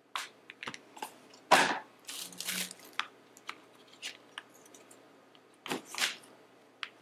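Screen-protector packaging of cardboard and plastic being handled and unpacked: short bursts of crinkling and rustling with small taps and clicks, the loudest about a second and a half in and again near six seconds.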